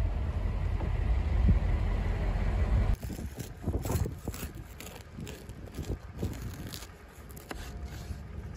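A steady low rumble, then from about three seconds in a large knife sawing through a baked tin loaf, its crisp crust giving irregular short crackles and scrapes under the blade.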